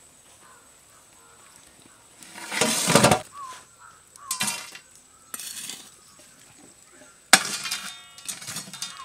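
Steel cookware being handled as a biryani pot is closed for dum cooking: a few scraping and clattering sounds, then a sharp metallic clank about seven seconds in.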